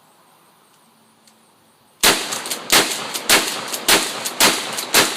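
Mossberg 590A1 pump-action shotgun fired six times in quick succession, about 0.6 s apart, starting about two seconds in, with echo after each shot. It is being run as fast as possible to check that it cycles properly after a fix.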